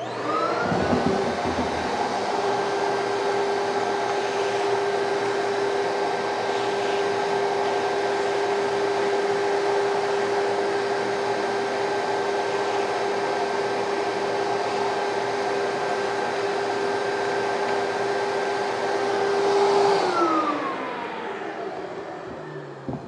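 Ash vacuum switched on, spinning up quickly to a steady motor whine while sucking up ash around a wood stove's front door and door seal. About 20 seconds in it is switched off and its pitch falls as the motor winds down.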